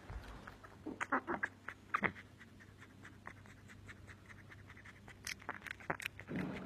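American pit bull terrier puppies making short whimpering cries, a quick run of them just after a second in and again about two seconds in, with one more near the end, over small clicking and shuffling sounds.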